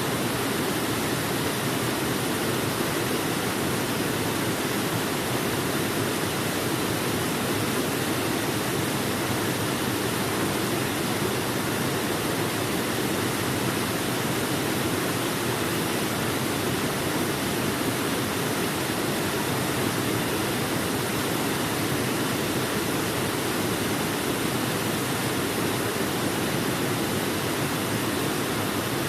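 Waterfall pouring steadily: an even, unbroken rush of falling water, fullest in the lower range.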